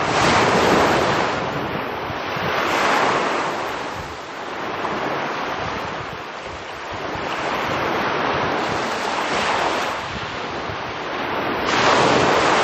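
Small sea waves breaking and washing up a pebble beach, swelling and falling every few seconds, with the loudest breaks just after the start and near the end.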